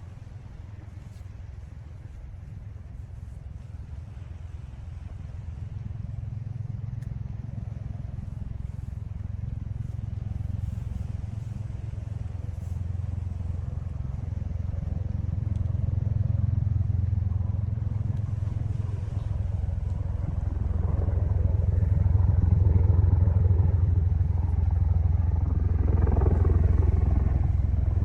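A vehicle engine's low, steady rumble growing gradually louder as it approaches.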